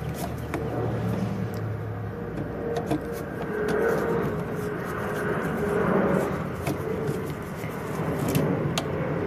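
A car engine running nearby, a steady low rumble that swells in the middle. A few light clicks and scrapes come from a screwdriver turning a breaker's mounting screw.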